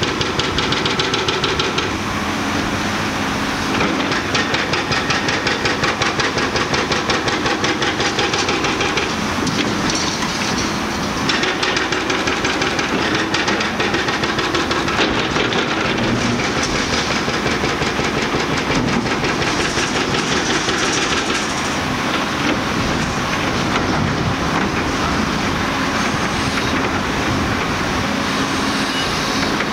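Hydraulic breaker on a demolition excavator's long boom hammering concrete: a fast, steady clatter of blows.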